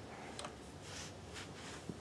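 A screwdriver turning a small screw into a Kenmore 158.1030 sewing machine, making a few faint ticks and scrapes, with a small click near the end.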